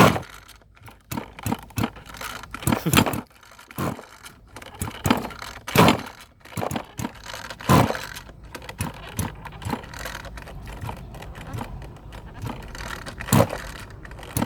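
Irregular knocks, clicks and clatter of hard objects being handled, with rustling between them.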